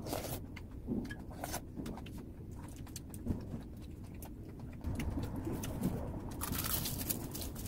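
Eating at a table: scattered short clicks and taps of spoons and chopsticks on dishes and of chewing, with a few faint, short, low hums.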